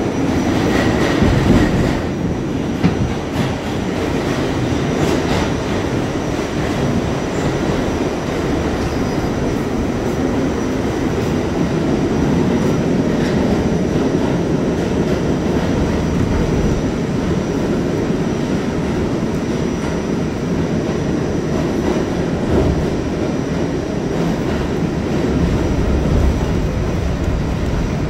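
Steady rumble of an R68A subway car running at speed through a tunnel, heard from inside the car: wheels on rail and running gear.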